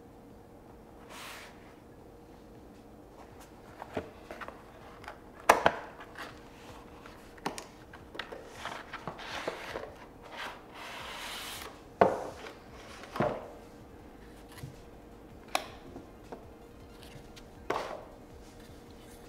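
Cardboard knife packaging being handled by hand: scattered taps, knocks and rustles of the box and its inner cardboard insert, with one longer sliding rub midway through. A faint steady hum runs underneath.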